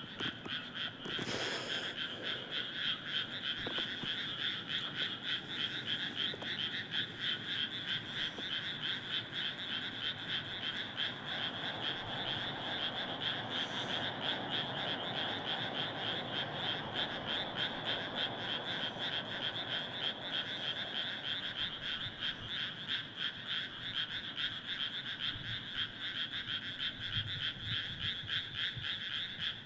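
A dense chorus of many rice-paddy frogs calling together: a continuous, rapid, overlapping croaking that holds steady throughout.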